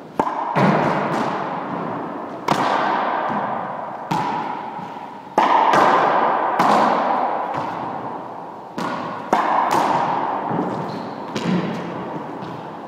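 Hollow rubber ball struck with a racquet and rebounding off the walls and floor of an enclosed court. About a dozen sharp hits come at uneven intervals, each ringing out in a long echo.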